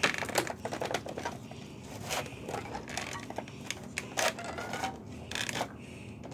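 Cardboard toy box being forced open by hand: scattered scrapes, taps and rubbing of the packaging, with short clicks throughout.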